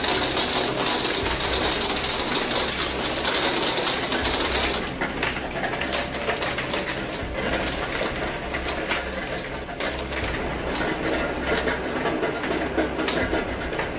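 Heavy hail pelting a wooden deck and a glass door: a dense, rapid clatter of hailstone hits over wind. A high hiss sits on top for about the first five seconds.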